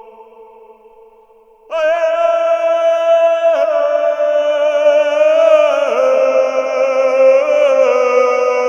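Chanted church-ritual voices: a held note dies away, then just under two seconds in the voices come in loudly on a long sustained chord with a wavering vibrato, shifting pitch a couple of times.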